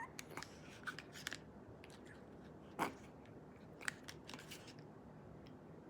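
Slime being squeezed and poked by hand: scattered faint wet pops and crackles, the loudest a little under three seconds in.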